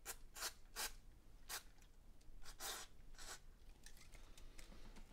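Faint, short hissing squirts from an aerosol can of contact cleaner sprayed through its extension straw into the empty CPU socket: about seven quick bursts over three and a half seconds, one near the three-second mark a little longer than the rest.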